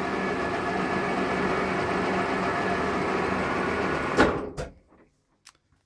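Milling machine spindle motor and gearbox running steadily with a steady hum, then switched off about four seconds in with a sharp click and winding down to a stop within half a second.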